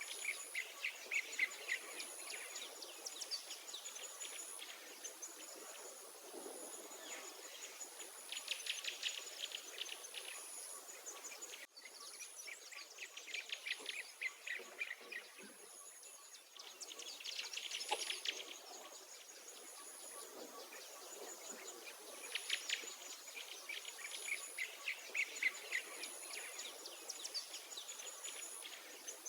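Songbirds singing in repeated bursts of rapid, trilling chirps every few seconds, over a thin, very high insect whine that keeps breaking off and starting again.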